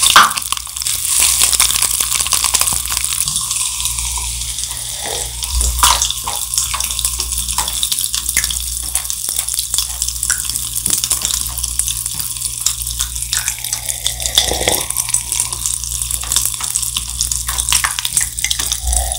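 Cider-flavoured popping candy powder fizzing and popping in glasses of water: a steady hiss full of small crackling pops.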